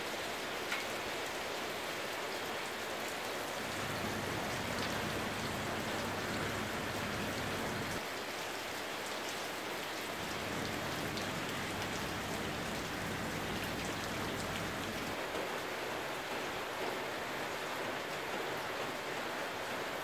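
Steady rain falling and pattering on surfaces, an even hiss that holds level throughout.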